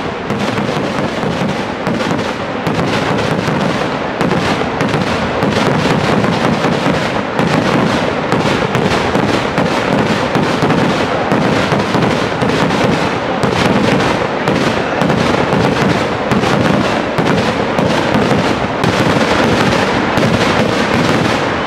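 A massed barrage of Kerala temple-festival fireworks (vedikettu): rapid bangs and crackling go off so close together that they merge into one continuous sound, growing louder over the first few seconds.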